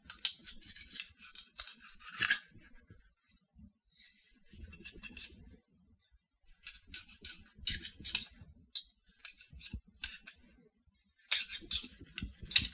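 Cleaning rod with a cloth patch scraping in and out of a Zastava M70 pistol magazine, in four bursts of quick strokes with short pauses between them: the patch is wiping a light coat of oil inside the magazine.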